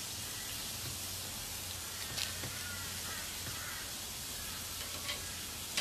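Vegetable slices (eggplant among them) sizzling steadily on a hot barbecue grill plate.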